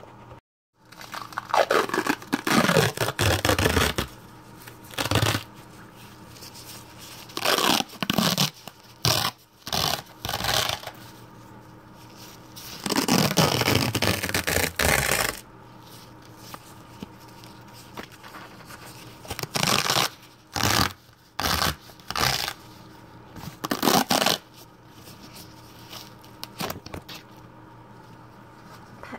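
Bandage cloth being wrapped and dragged right over the microphone, in a series of close rustling, scraping strokes. Some strokes are drawn out for two or three seconds, and near the end there are quicker, shorter swipes.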